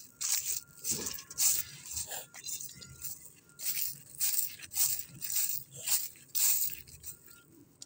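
Footsteps crunching through dry dead leaves and brittle dormant grass, about two steps a second at a walking pace. A garbage truck's reversing alarm beeps faintly behind them.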